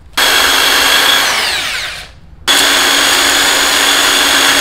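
Corded electric drill boring small pilot holes into a particleboard tabletop, in two runs. It runs steadily for about a second, then winds down with a falling whine as the trigger is let go. About half a second later it starts again and runs steadily.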